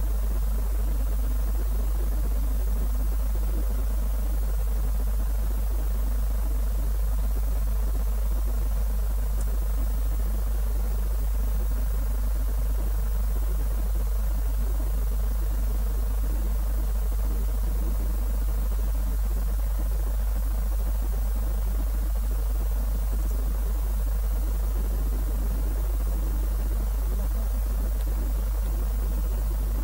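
Steady low electrical hum with a faint hiss above it, unchanging throughout; no launch or engine sound.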